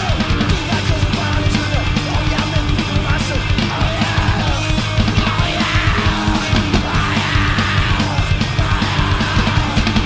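Hardcore punk song playing loud and fast: distorted electric guitar, bass and rapid drumming.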